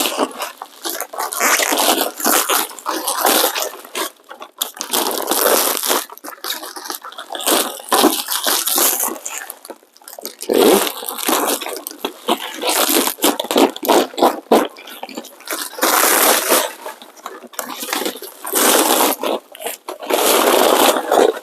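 Bubble wrap and plastic packaging crinkling and rustling as it is pulled off and handled, in irregular bursts.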